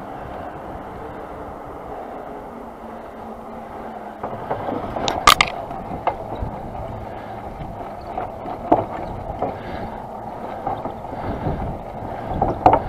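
Mountain bike rolling along a paved path: a steady hiss of tyre and rushing air, with short rattling knocks from the bike from about four seconds in, the sharpest about five seconds in.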